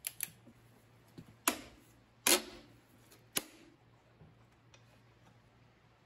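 Sharp metallic clicks and clinks, four of them spread over the first three and a half seconds, as hands work the rocker arms and valve gear on the cylinder head of a 1975 SABB diesel. The loudest click, about halfway through, rings briefly.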